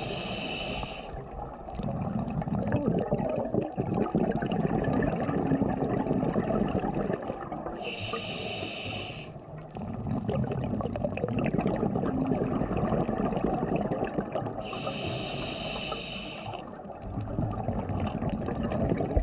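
Scuba diver breathing through a regulator underwater. There are three short hissing inhalations, near the start, about 8 seconds in and about 15 seconds in. Each is followed by a long, loud bubbling exhalation.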